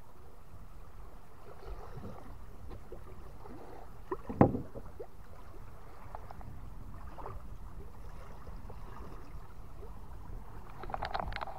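Steady low wind and water wash around a small fishing boat at sea, with one sharp knock about four and a half seconds in and a run of quick ticks near the end.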